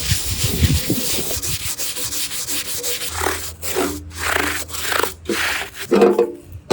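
Abrasive rubbing strokes on a hard surface, repeated several times and closer together in the second half. A low steady hum runs through the middle.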